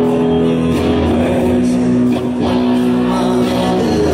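Live rock band playing through a concert PA: electric guitar and bass over drums, with long held chords.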